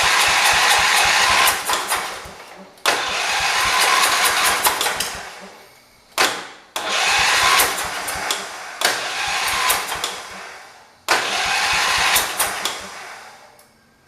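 A John Deere 208 garden tractor's single-cylinder engine being cranked over and over, about five tries in a row, each starting suddenly and fading away within a few seconds as it fails to keep running.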